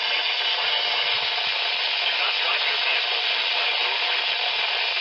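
Steady hiss of radio static from a receiver, even and unbroken.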